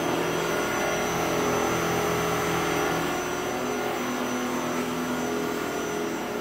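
Tsugami BS-20BII CNC Swiss lathe running with its main spindle turning at 2500 RPM: a steady machine hum with a high, steady whine over it.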